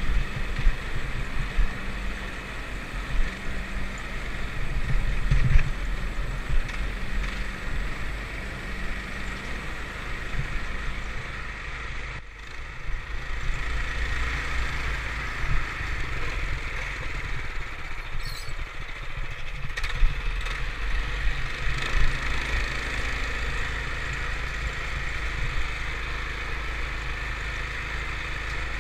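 ATV engine running steadily while riding, with a noisy low rumble that dips briefly about twelve seconds in.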